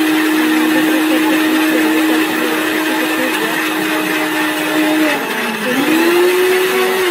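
Electric mixer-grinder motor running with a steady whine, grinding roasted green tomatoes, coriander, chilli, ginger and garlic into a fine chutney. About five seconds in its pitch dips, then climbs back up higher.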